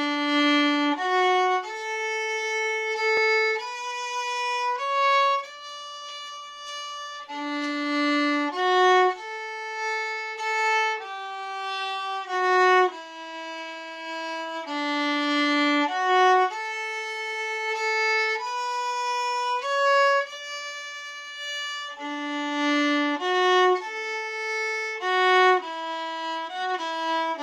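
Solo fiddle playing a traditional Irish tune, one bowed melody line of held notes with quicker notes near the end.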